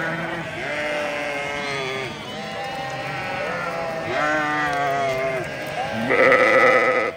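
A flock of sheep bleating, many calls overlapping one after another. A single loud bleat starts about six seconds in and lasts about a second.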